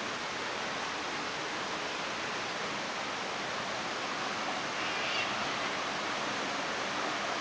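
Steady rush of falling water from a nearby waterfall, an even hiss with no breaks. A faint short high chirp about five seconds in.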